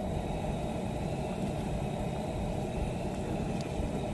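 Steady low rumbling roar of a lit portable camp stove burner.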